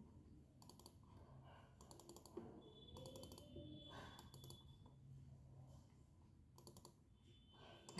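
Faint computer mouse clicks in a few quick clusters, as folders are double-clicked open, over quiet room tone.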